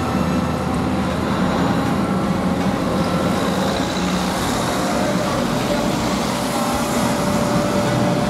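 Diesel engine of a high-reach demolition excavator running steadily as the boom lifts its crusher jaws, with a thin steady whine over the engine.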